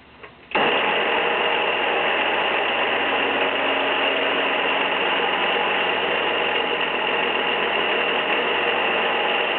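Gryphon wet belt sander switching on about half a second in, then running steadily at full speed.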